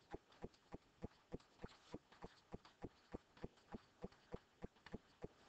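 Near silence with a faint, very regular ticking or light thumping, about three beats a second.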